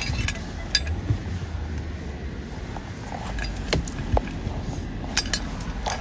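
Handling noise of a phone moved about against clothing: scattered clicks, knocks and light clinks over the low, steady hum of a car cabin.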